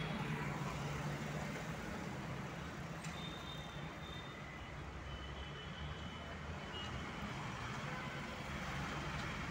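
Steady low hum with a hiss over it inside a Hyundai Xcent's cabin, typical of the car idling while parked.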